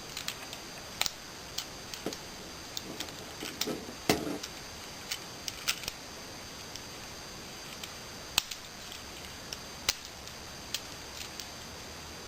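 Plastic Transformers action figure being transformed by hand: irregular clicks and light knocks as its plastic parts are turned, pulled and snapped into place, a dozen or so in all, with the sharpest about a second in, around four seconds in and just past eight seconds.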